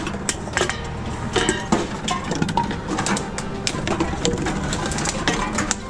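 Drink containers clattering and clicking as they are handled and fed into a reverse vending machine for recycling: a rapid, irregular run of sharp clicks and knocks over a steady low hum.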